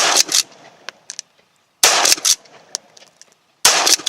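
Remington 7615 pump-action .223 rifle's action being worked three times, each a quick pair of metallic clacks as the slide goes back and forward, likely cycling out misfired Wolf steel-cased rounds.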